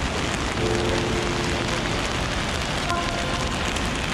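Steady rush of fast-flowing mountain water, an even hiss with no breaks. Faint short tones sound about half a second and three seconds in.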